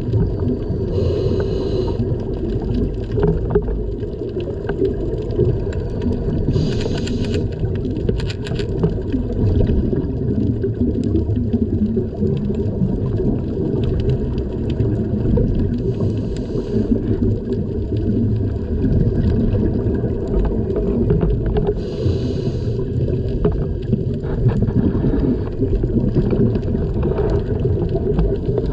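Underwater sound of a night scuba dive, heard through the camera housing: a steady, muffled low rumble of water. Four or five times, brief hissing bursts of the diver's exhaled bubbles from the regulator break through, a few seconds apart.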